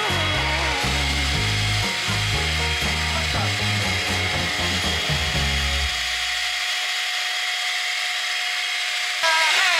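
Electric hand mixer running with a steady whine, its twin wire beaters whisking cake batter in a bowl. Background music with a low beat plays under it and stops about six seconds in; near the end a louder sound cuts in.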